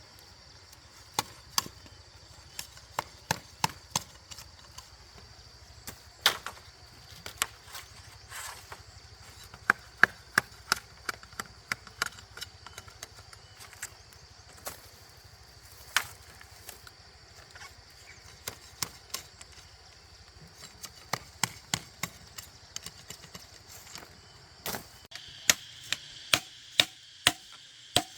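Wood being chopped with a blade: many sharp strikes at irregular spacing, some in quick runs. Insects drone steadily behind them.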